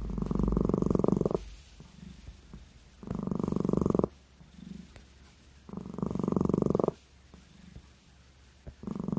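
A domestic cat snoring while asleep: four snores, each about a second long, come roughly every three seconds with quiet breaths between.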